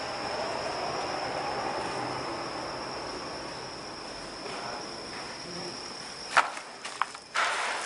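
Cricket trilling as one steady high note over faint night hiss. A little over six seconds in the trill cuts off and crunching footsteps on dry debris begin.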